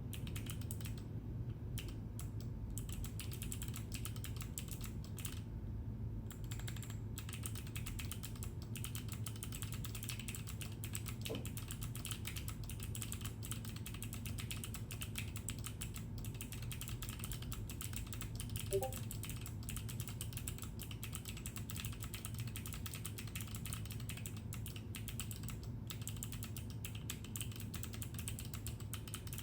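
Typing on an Alice-layout mechanical keyboard with a top-mount polycarbonate plate and linear switches: a steady stream of keystroke clacks.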